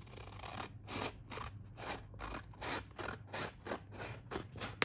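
Scissors cutting paper: a quick, even run of snips, about four a second.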